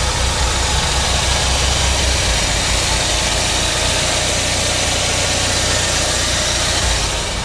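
The 2.4-litre four-cylinder engine of a GMC Terrain idling, heard from beneath the vehicle as a steady low rumble under a rushing hiss. It eases off slightly near the end.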